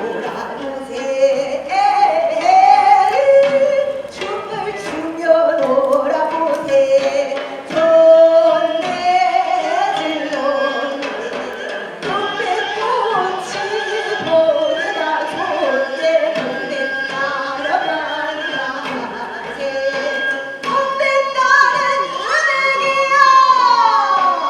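A female Korean folk singer singing a sinminyo, a new-style Korean folk song. Her voice bends and slides between notes, with long held notes near the end.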